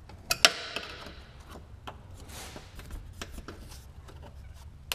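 Two screwdrivers prying plastic push-pin pop clips out of a car's underbody panel: scattered sharp clicks and small scrapes of metal on plastic, the loudest pair about half a second in, with a short rustling scrape partway through.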